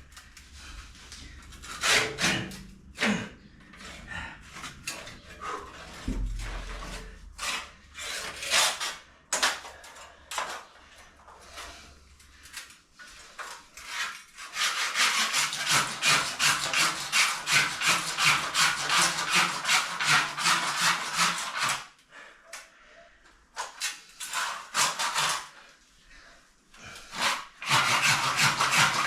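Hand saw cutting through a pipe: a few scattered strokes at first, then a steady run of quick back-and-forth strokes, about three a second, from about halfway; it pauses and starts again near the end.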